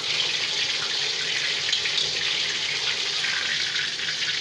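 Piece of lamb rack sizzling in hot rendered lamb fat in a cast-iron kazan: a steady frying hiss flecked with fine crackling.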